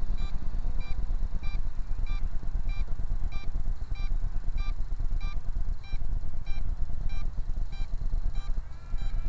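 MJX Bugs 8 radio transmitter beeping steadily, about one and a half short high beeps a second, because it is being used to fly a Bugs 3 quadcopter. The beeps sit over a loud, rough low rumble.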